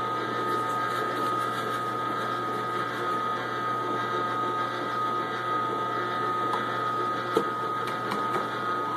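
Omega J8006 slow single-auger masticating juicer running while juicing spinach: a steady motor hum with a constant high whine. A couple of faint clicks come near the end.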